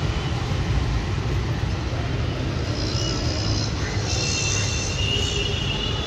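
Steady low rumble of street noise, with a thin high-pitched squeal from about three to five and a half seconds in.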